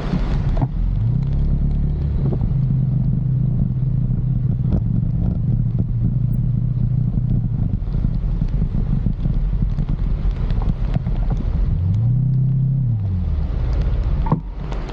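An engine running with a low drone; its pitch rises about a second in, holds, drops about two-thirds of the way through, and swells up and back down once more near the end.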